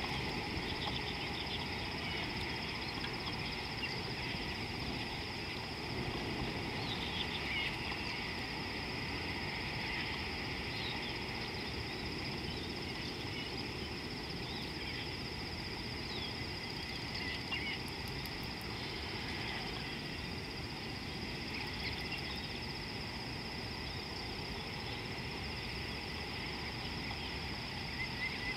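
Outdoor wildlife ambience: many short, scattered bird chirps over a steady high-pitched hum and a low, even background noise.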